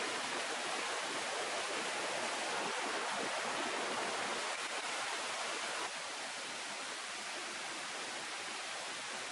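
River water flowing, a steady rushing hiss with no distinct splashes. It drops a little in level about six seconds in.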